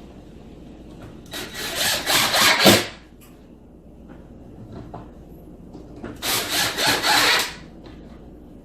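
Power drill driving screws through the playing field into pre-drilled holes in the wooden table frame. There are two runs of about a second and a half each, the second about three seconds after the first ends.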